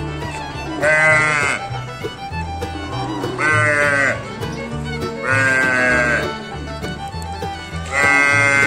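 A calf bawls four times, each call a loud, falling moo-bleat lasting under a second and coming about every two and a half seconds. Music plays underneath.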